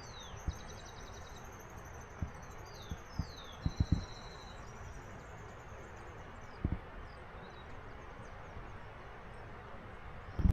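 Birds chirping and trilling over a steady background hiss, with a few dull low thumps, several close together about four seconds in.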